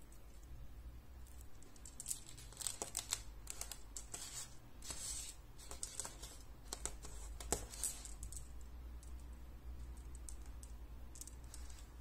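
Glass seed beads and lampwork glass beads clicking and rustling against each other as a beaded necklace is handled and laid down, in scattered light clicks that are busiest in the middle, over a low steady hum.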